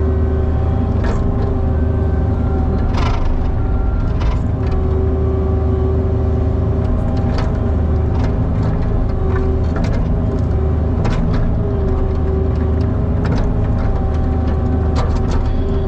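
Cat 304 mini excavator's diesel engine running steadily under work, with a tone that swells and fades as the machine works and short sharp knocks every few seconds.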